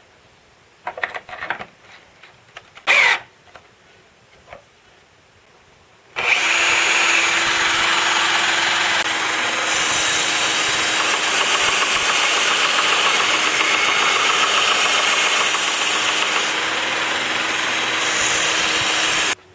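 A few knocks and clicks of a wooden workpiece being handled, then, about six seconds in, the cordless drill that powers a homemade 1-inch belt sander starts and runs at steady speed, driving the belt while a plywood piece is sanded against it, until it stops abruptly near the end.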